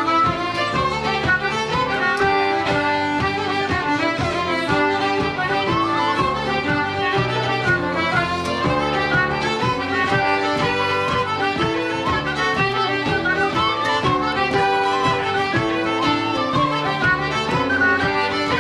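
Traditional Irish session music: fiddle, tin whistle, concertina and keyboard playing a fast dance tune together, without a break.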